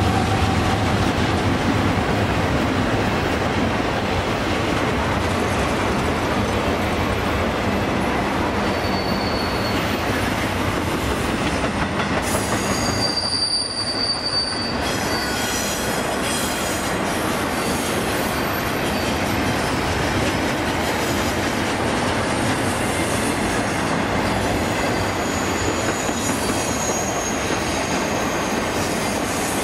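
Empty double-stack intermodal well cars of a freight train rolling past on a curve: a steady rumble and rattle of steel wheels on rail, with high-pitched wheel squeal coming and going. The sound dips briefly about halfway.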